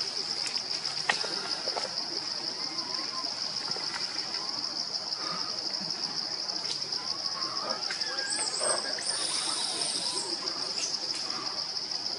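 A steady, high-pitched insect chorus with a fast pulse throughout, and a second, higher buzzing that joins about eight seconds in and stops about two seconds later. Faint short calls and a few soft clicks are scattered over it.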